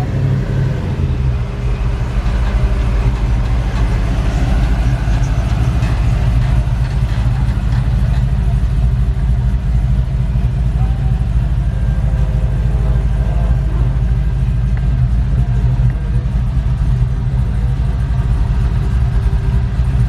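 Motor vehicle engine running steadily, with a constant low rumble.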